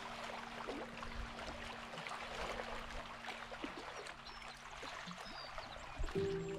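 Gentle water trickling and lapping: a steady hiss of many small splashes. Soft sustained music tones fade out about halfway through and come back near the end.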